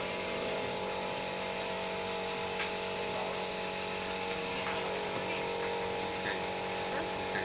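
Steady whir of a small electric motor running without change, with a few faint clicks.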